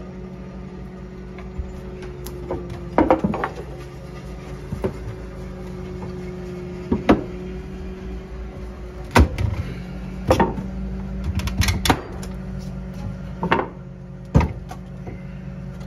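Pry bar levering up old wooden attic floorboards: scattered sharp knocks and clacks of metal on wood and loosened boards, about a dozen spread irregularly. A steady low hum runs underneath.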